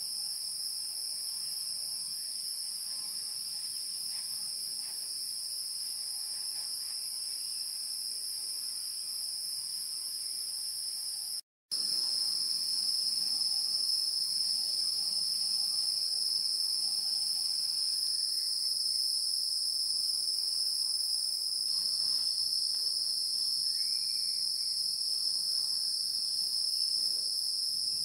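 A steady, high-pitched chorus of insects, cricket- or cicada-like, with faint background noise. It cuts out for a split second about a dozen seconds in and comes back slightly louder.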